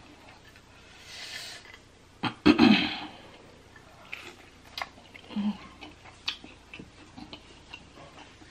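Close-up eating sounds of a birria quesadilla dipped in consommé: a loud bite about two and a half seconds in, then chewing with many short crunchy clicks from the crisped tortilla.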